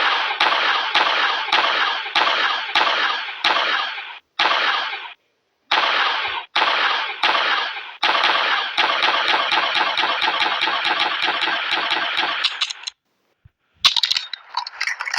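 M16-type rifle firing on full automatic: several short bursts of rapid shots with brief pauses between them, then one long continuous burst lasting about five seconds. Near the end comes a brief different crackling sound.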